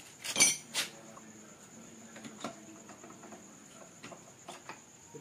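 Metal clinking: a bright, ringing clink of metal tools or parts knocked together about half a second in, followed by a few lighter ticks and taps.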